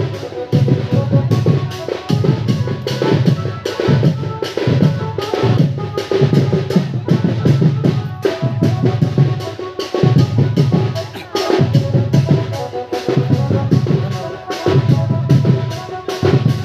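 Dhemsa dance music: a loud, driving drum rhythm of deep beats and sharp hits, with a steady melody line over it.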